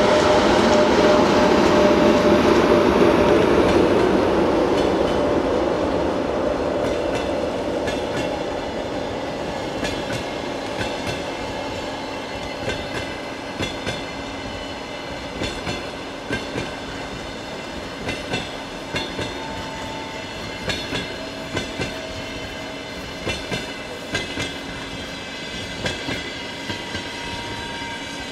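EP1M electric locomotive's running noise, loud at first and fading over the first several seconds as it pulls away. Then passenger coaches roll past, their wheels clicking in pairs over the rail joints, the pairs coming more often as the departing train picks up speed.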